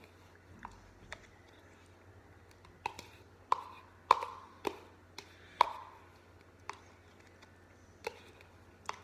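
An eating utensil clicking and scraping against a microwavable mac and cheese cup: about a dozen sharp taps, each with a brief ring, loudest and closest together in the middle.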